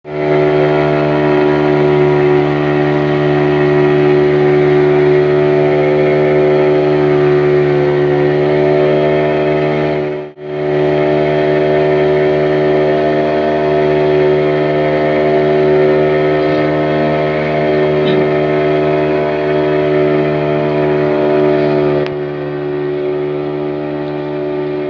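Motorboat engine running steadily under way, an even drone, with a brief dropout about ten seconds in.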